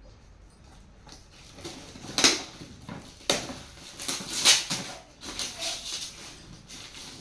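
Gift wrapping paper being torn and crinkled in irregular bursts as a present is unwrapped, with the sharpest tears about two and four and a half seconds in.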